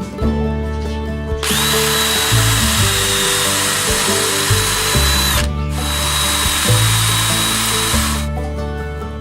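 A small power tool runs twice, about four seconds and then about two and a half seconds, a high steady whine over a hiss that winds up at the start of each run and stops abruptly.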